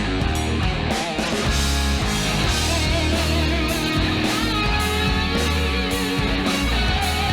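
Background music: rock with electric guitar and a steady beat.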